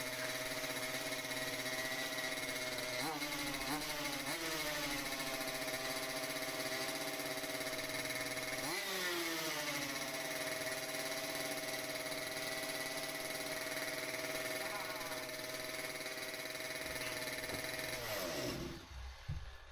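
Small RC car engine running at very high revs, with a few brief rises and falls in pitch, then dying away near the end. It is revving really high because it is running lean, which the owner believes is from the nearly empty tank pulling air through the fuel line.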